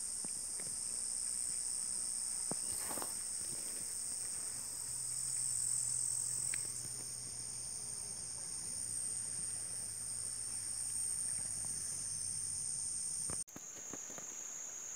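Steady, shrill chorus of insects buzzing in riverside vegetation, with a faint low hum through the middle.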